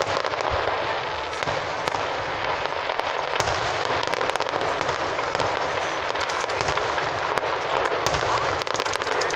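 Fireworks crackling and popping without a break, many small reports overlapping, with frequent sharper pops scattered through.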